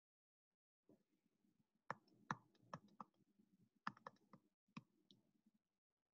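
Faint, irregular taps and scratches of a stylus pen writing on a tablet screen: a handful of sharp clicks between about two and five seconds in.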